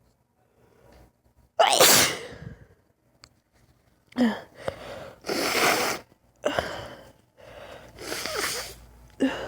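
A woman sneezing several times in quick succession during a sneezing fit, each sneeze preceded by a short intake of breath. The first sneeze, about a second and a half in, is the loudest.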